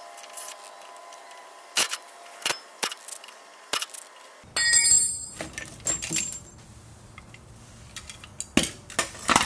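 Metal tools and bolts clinking and clattering as the bolts holding a Jeep's rear drum-brake backing plate are undone with a wrench and a cordless impact wrench and the plate is pulled off the axle. A short, louder rattling burst comes about halfway through, and a cluster of sharp clinks comes near the end.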